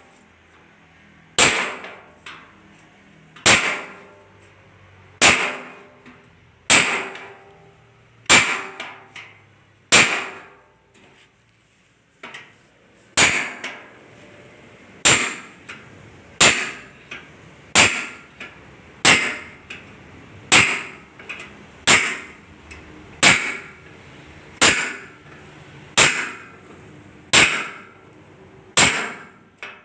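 Hammer blows on the sheet metal of a car's engine hood, each a sharp clang with a short ring. They come about one every second and a half, with a short pause near the middle: metalwork to form air vents in the hood.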